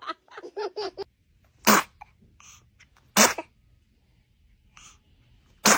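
Newborn baby sneezing three times: short, sharp sneezes spaced a second or two apart, the last near the end.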